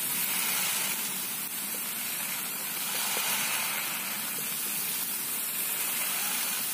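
Handheld water sprayer misting water onto potting medium in seedling polybags, a steady hiss without breaks.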